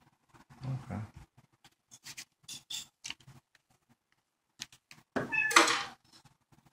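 A house cat meows once, loud and brief, about five seconds in. Before it, faint clicks and rustles of bills and cards being handled in a leather billfold.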